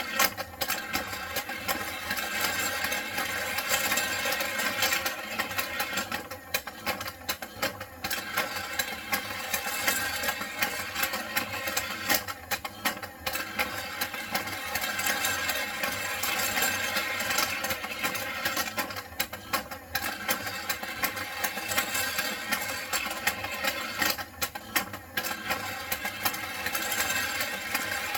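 Motorized toy race track running: the small motor and plastic gears of its lift mechanism make a steady clattering rattle. It eases off briefly a few times.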